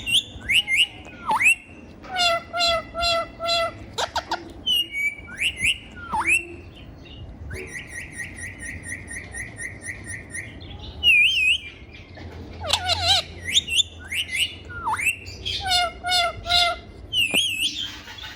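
Ringneck parrot calling: a string of short whistles, chirps and sliding squawks, with a fast run of evenly repeated notes, about four a second, from about eight to ten seconds in.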